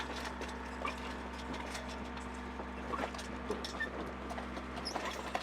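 Sailboat's engine running steadily while motoring, a constant hum, with scattered light clicks and rattles on board.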